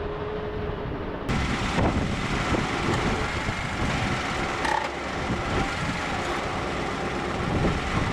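Vehicle engine running with a rough, steady rumble; the noise grows fuller and brighter about a second in.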